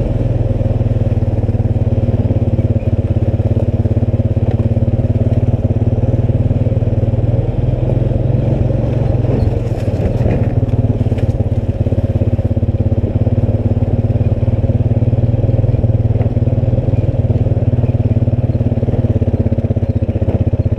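ATV engine running at a low, steady speed as the quad is ridden slowly along a rough trail. A few light clattering sounds come about ten seconds in.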